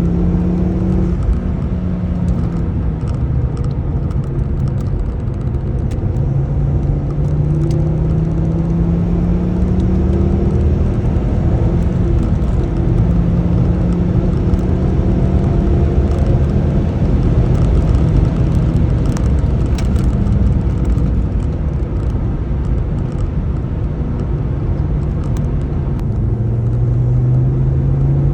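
Ford Focus ST225's turbocharged 2.5-litre five-cylinder engine running under way on the road, its pitch climbing slowly in long pulls, dropping near the end and rising again, over steady road rumble.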